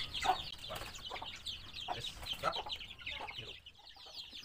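Mixed flock of free-range village and Bangkok-cross chickens calling at feeding time: many short, high calls close together, with lower clucks among them. The calls thin out briefly near the end.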